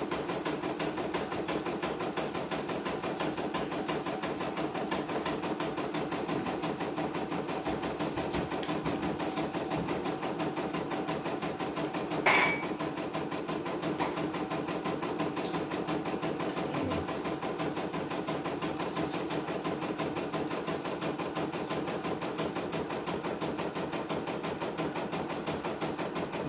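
CNY computerized embroidery machine stitching a design during a test run, its needle going in a rapid, even stream of stitches. One sharper, louder sound about midway.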